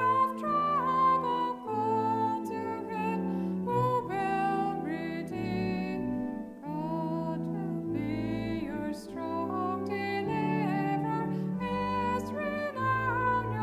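A hymn sung by a woman's voice over steady instrumental accompaniment, the melody moving note by note with held, wavering notes.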